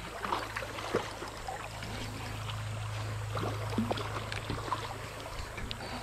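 Spinning reel being cranked against a hooked fish: a steady low whir with scattered light clicks, over gently moving river water.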